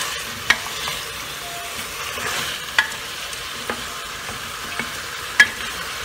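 Chicken pieces sizzling in hot oil in an aluminium pressure cooker as they are stirred and turned with a wooden spoon. A steady sizzle, with a few sharp clicks; the loudest comes about five seconds in.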